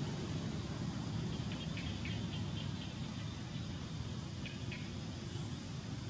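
Outdoor forest ambience: a steady low rumble, with a few short high chirps about a second and a half in and again near the end.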